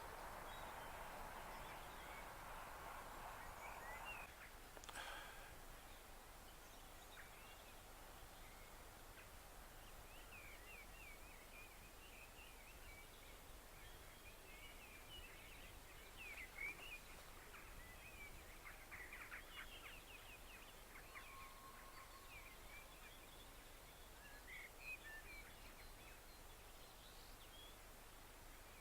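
Quiet outdoor ambience with small birds chirping now and then. A faint hiss dies away in the first four seconds, and there is a single click about five seconds in.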